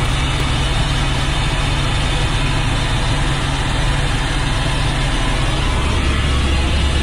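Helicopter engine and rotor noise, loud and steady, heard from aboard the aircraft at altitude before a parachute jump. A little before the end the low hum shifts lower and grows stronger.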